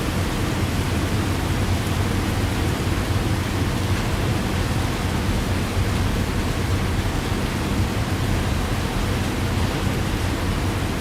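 Steady heavy rain: a continuous, even hiss with a deep low rumble underneath and no separate drops or thunderclaps standing out.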